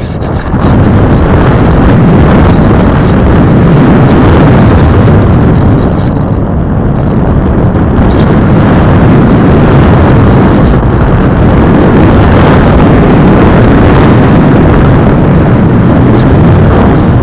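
Steady, loud rush of air and propeller noise from a Squirt 700 radio-controlled plane with a brushless electric motor in flight, heard through its onboard camera's microphone with wind buffeting it. The noise swells up about half a second in.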